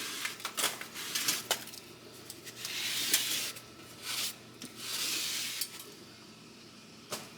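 Handling of cleaned range-hood parts: several sharp clinks and knocks in the first second and a half, then two stretches of rubbing or scraping noise, and one more knock near the end.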